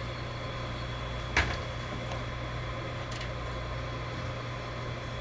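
Steady low electrical hum of the idling laser engraver, with one sharp click about a second and a half in and a fainter click near three seconds as the rotary attachment is adjusted by hand.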